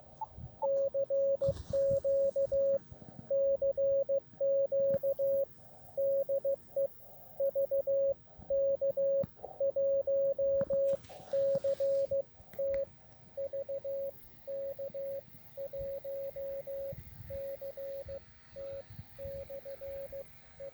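Morse code (CW) tone from an Elecraft KX2 transceiver. A single steady pitch is keyed on and off in short and long elements, dots and dashes, throughout.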